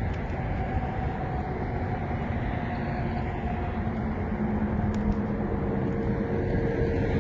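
Steady rumble of motor vehicles, with faint engine hums that slowly shift in pitch as they pass.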